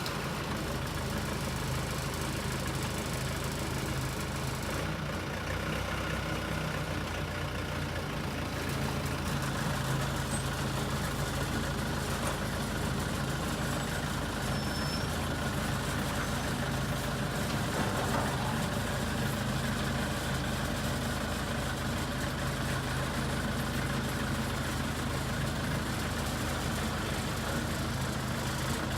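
Backhoe engine running steadily, getting slightly louder about nine seconds in.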